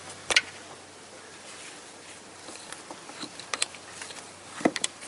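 Scattered sharp clicks and snaps of plastic push-in fasteners being worked loose from a plastic car cover: one about a third of a second in, a pair past halfway, and a quick cluster near the end.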